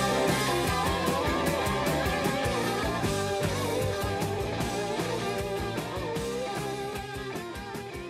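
Rock music with electric guitar and drums, the guitar playing a run of lead notes. The music fades out gradually.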